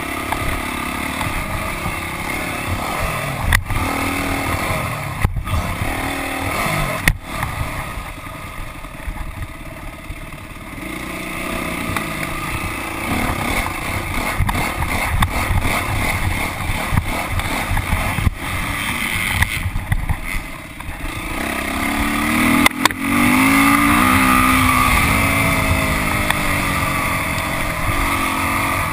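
Motocross bike engine heard from on board while racing, revving up and dropping off again and again as the rider works the throttle through the gears, loudest and climbing hard in pitch about three quarters of the way through. Several sharp knocks break through as the bike crosses the rough track.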